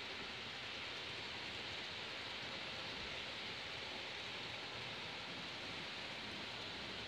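A steady, even hiss with no distinct events and no change in level.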